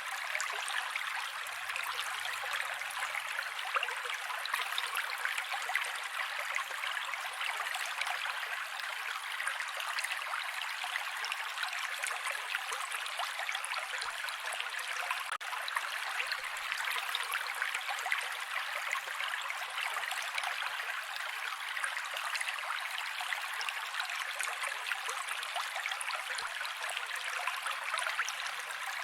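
Mountain creek running: a steady, even rush of flowing water, thin, with no deep rumble.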